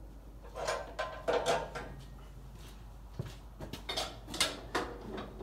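A person moving about beside the tractor: rustling of clothing and a scatter of light knocks and clunks, in two busy stretches with a short lull between.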